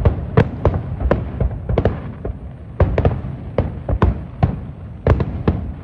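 Fireworks bursting in a rapid, irregular run of sharp bangs, about two or three a second, over a low rumble.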